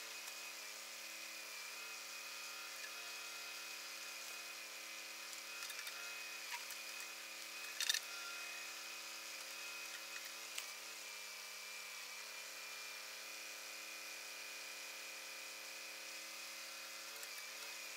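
Kubota compact tractor's diesel engine running steadily while it powers the backhoe, its pitch sagging briefly several times as the hydraulics take load. A sharp knock about eight seconds in.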